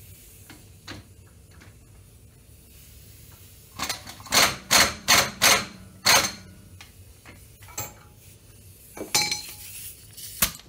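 Metal hand tools clanking and clinking on steel parts: faint light clicks at first, then a quick run of about six sharp ringing clanks about four seconds in, and a few scattered clinks near the end.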